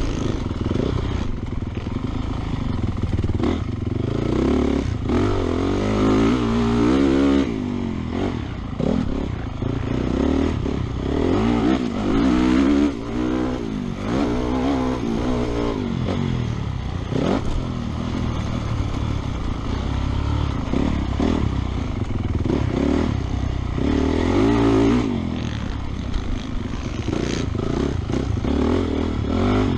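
Honda 450 motocross bike's single-cylinder four-stroke engine at race pace, revving up and down as the rider works the throttle and gears through turns and straights. The engine note twice cuts sharply when the throttle is shut.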